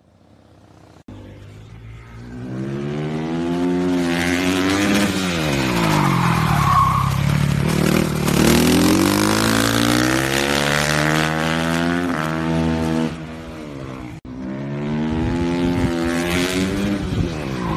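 Racing motorcycle engine at full throttle on a track, its pitch climbing and dropping sharply as the rider accelerates, shifts gears and brakes for corners. It cuts off suddenly near fourteen seconds in, and another run of rising engine notes follows.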